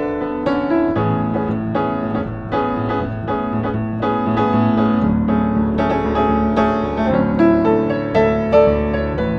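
1960s upright piano being played: a flowing passage of melody over held bass notes, with notes struck several times a second.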